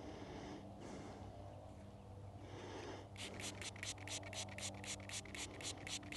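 Fingers rubbing dirt off a small lead find, then a Nokta AccuPoint metal-detecting pinpointer beeping in quick, even, high-pitched pulses, about five a second, as its tip is held against the lead object.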